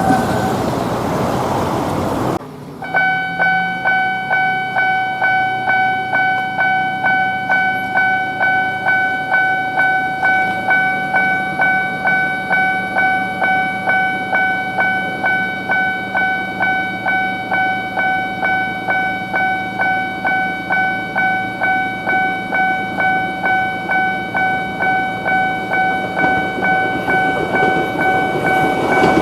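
Japanese railway level-crossing warning bell ringing its repeated 'kan-kan' ding in a steady, even rhythm. It starts about three seconds in, right after a short stretch of broad rumbling noise that cuts off suddenly.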